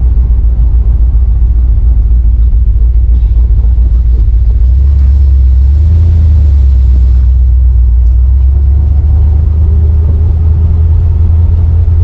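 1971 Corvette V8 engine running with a deep, steady exhaust rumble; the engine note rises slightly about five seconds in and holds before easing back.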